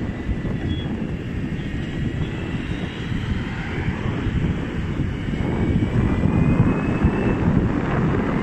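Electric skateboards rolling at speed on asphalt: a steady low rumble of wheels and wind on the microphone, with a faint high motor whine that rises in pitch about two-thirds of the way through.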